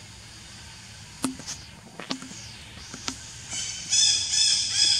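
High-pitched animal calls, pulsing about three times a second, begin about three and a half seconds in and are the loudest sound. Before them come a few sharp clicks about a second apart.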